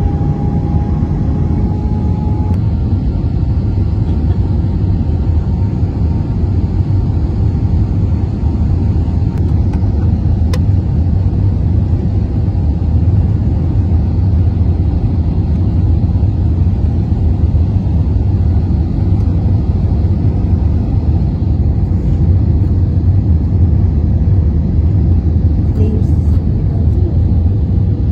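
Steady low rumble of an airliner cabin in flight, engine and airflow noise, with a faint steady tone that glides slightly upward in the first two seconds.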